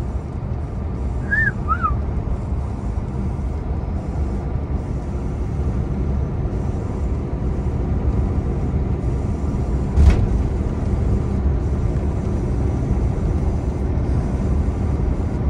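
Truck running on the road heard from inside the cab: a steady low engine and road rumble. Two short chirps come about one and a half seconds in, and a single sharp knock about ten seconds in.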